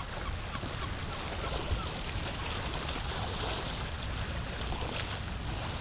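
Small sea waves washing steadily against a rocky shoreline.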